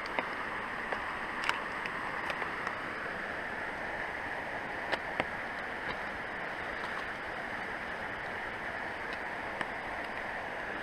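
Steady rushing noise of running water, with a few short clicks scattered through.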